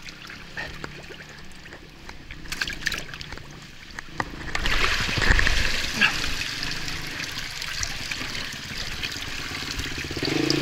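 Creek water splashing and trickling around the bike and the rider, with louder splashing from about four and a half seconds in. Just before the end a motorcycle engine comes in running.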